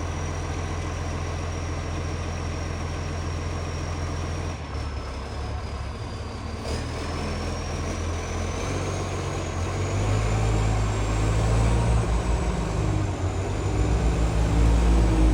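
Garbage truck's diesel engine running, loud through a leaking exhaust pipe. It runs steadily, then picks up and gets louder about ten seconds in and again near the end.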